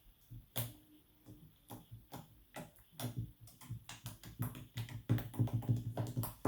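Hands working homemade clear slime, making small wet clicks and pops. They come every second or so at first, then quicker and louder from about halfway.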